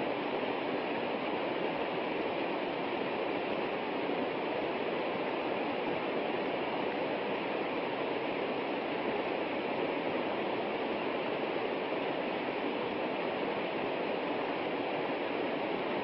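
A small waterfall cascading over rocks: a steady rush of falling water with no change in level.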